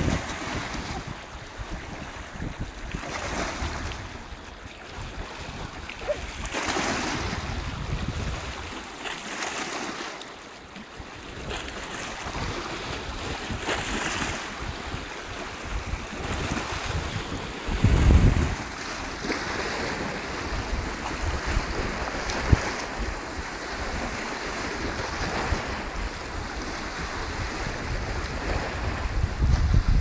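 Small waves of Lake Balaton washing in and splashing against the rocks of a stone embankment, swelling every few seconds. Wind buffets the microphone, loudest about eighteen seconds in.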